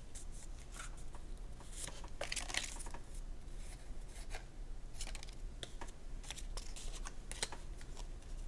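Playing cards being handled: a paper-banded deck of Uno cards is worked out of its band and the cards are slid apart, giving soft, irregular rustles and light clicks of card on card.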